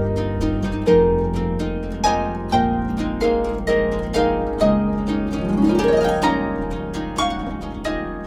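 Harp music: a steady flow of plucked notes over ringing bass notes, with a quick upward run a little past halfway.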